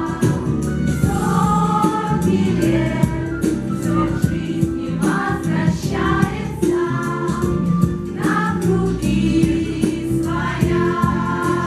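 A choir singing a song together over an instrumental backing track with a steady beat.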